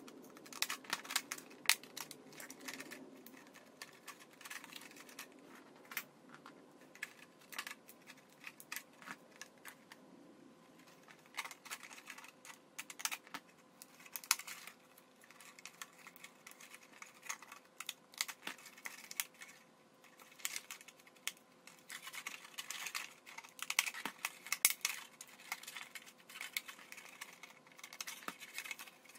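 Scissors cutting into a thin plastic PET bottle, the plastic crackling and clicking as it is snipped and bent into flaps: an irregular run of sharp clicks, busier in stretches.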